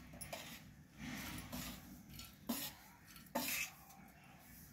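Dry grated coconut pouring and rustling into a stainless steel bowl. A spoon scrapes the rest out of the other steel bowl, with a couple of short, sharp metal scrapes and taps in the second half.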